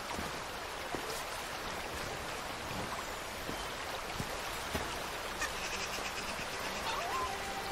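Steady rushing of a running stream over rocks, with a few soft clicks and knocks scattered through it.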